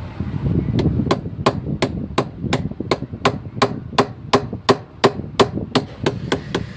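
Hammer tapping on metal in a fast, even rhythm, about three sharp strikes a second, over a steady low background hum.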